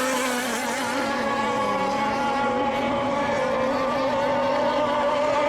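Several radio-controlled racing boats running on the course at once, their motors humming steadily at several slightly different pitches.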